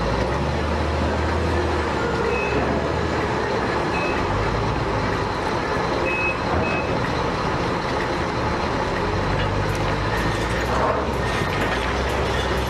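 Heavy diesel machinery engine running steadily, with a few short high beeps now and then.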